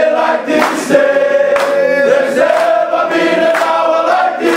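A group of men singing together as a choir, holding long notes.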